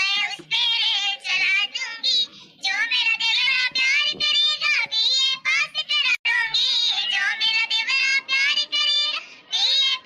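A high, child-like cartoon voice singing a Bundelkhandi dadra gaari geet folk song in continuous sung phrases.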